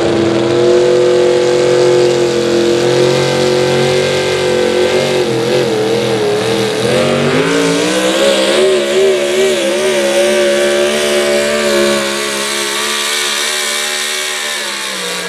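Four-wheel-drive pulling truck's engine running at high revs under full load while it drags the weight sled. The pitch holds steady, wavers up and down about five seconds in, climbs and holds again, then falls away near the end as the truck slows.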